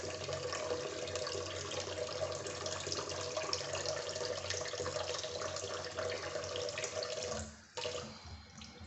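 Tap water running steadily into a sink, with a faint steady whine from the tap, shut off about seven and a half seconds in.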